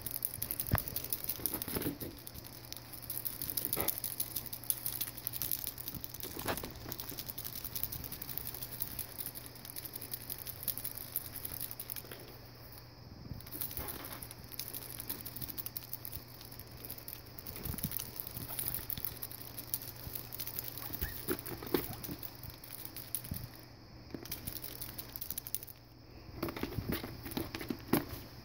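A guinea pig scampering about its cage, its feet pattering irregularly on fleece bedding and hay, with rustling of hay over a steady low hum.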